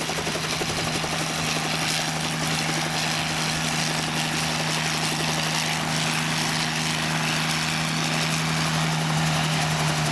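A 1956 Hiller UH-12C helicopter running on the ground at close range: its piston engine gives a steady low tone over the rush of the turning main rotor.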